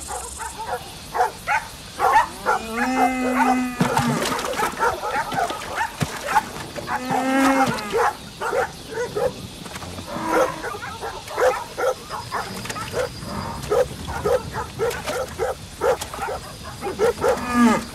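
A cow mired in deep mud bellowing, two long calls of about a second each, while dogs bark at it over and over.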